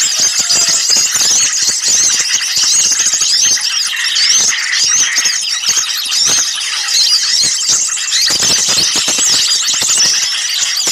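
A dense, noisy chorus of many small birds calling at once: rapid high-pitched chirps and short squealing notes overlapping without pause. These are the agitated, mobbing-type calls used as a bird-lure recording to draw small birds in.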